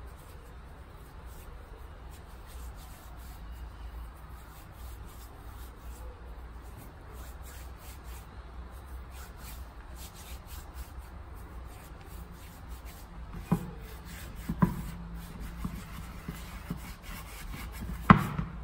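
Floured hands rubbing together to clean sticky sablé dough off the palms and fingers, a steady soft dry rubbing. In the second half come a few sharp knocks against the wooden kneading bowl, the loudest just before the end.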